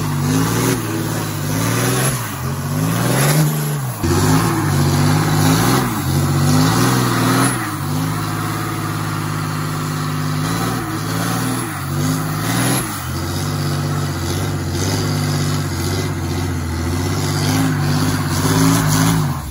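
The 2018 Ram 2500's 6.7-litre Cummins turbo-diesel inline-six revs hard during a burnout while the rear tires spin on the pavement. The revs climb and fall several times in the first eight seconds, then hold high and steady until they drop away at the end.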